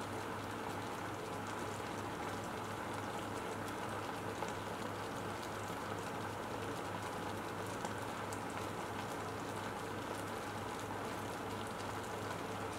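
Creamy mushroom sauce with oat cream boiling in a frying pan: a steady fine crackle and patter of bubbles bursting on the surface, over a low steady hum. The sound cuts off suddenly at the end.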